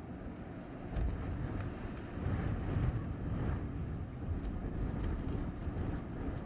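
Blizzard wind rushing with a deep, low rumble, gusting up about a second in and more strongly from about two to three and a half seconds in.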